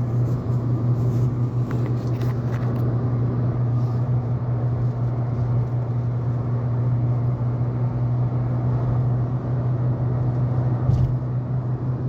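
Steady low drone of a vehicle engine with an even rush of road noise.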